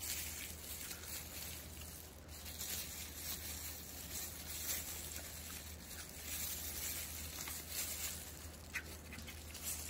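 Low steady room hiss and hum, with a few faint clicks and taps of handling.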